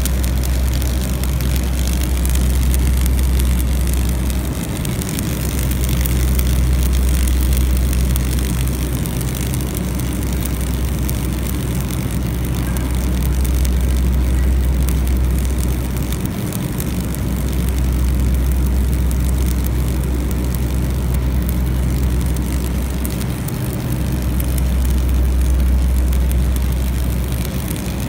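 Stick (shielded metal arc) welding along a steel seam: the electrode's arc hissing and crackling steadily, over a loud, steady low hum that breaks off briefly a few times.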